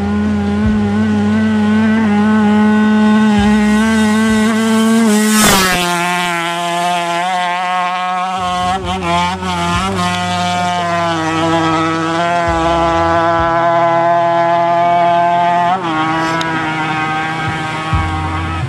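Racing motorcycle engine held at high revs, its pitch nearly steady. About five and a half seconds in it drops a little with a short burst of noise, and it dips briefly once more near the end.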